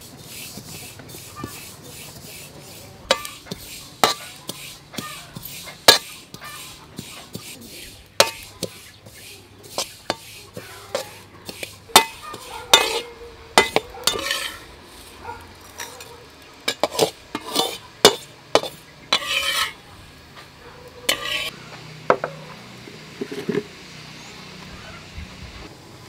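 Metal spatula scraping and clinking against an aluminium wok, stirring sesame seeds as they dry-toast. The strokes are irregular and sharp, come thickest midway, and thin out near the end.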